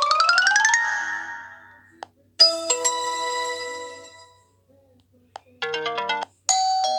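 Short ringtone and notification tones from an Optus X Start 2 phone's speaker, one after another, with a short click before each. First comes a fast rising run of notes, then a bright chime that rings out about two and a half seconds in, then a quick run of notes and another chime near the end.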